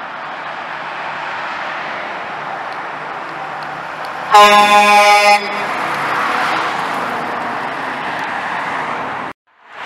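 Mack dump truck's air horn sounding one blast of about a second, a few seconds in, over steady traffic noise. The truck's engine and tyres rise as it drives past, and the sound cuts off abruptly near the end.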